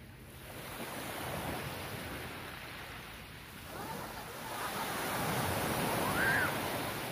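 Small sea waves breaking and washing up onto a sandy, pebbly shore, swelling twice, the second swell louder near the end. A brief, faint shout is heard near the end.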